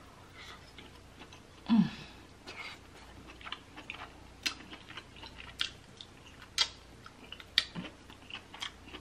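Close-miked chewing of soft king crab and lobster meat in Alfredo sauce, with wet mouth smacks and clicks about once a second. A short hummed 'mm' comes a little under two seconds in.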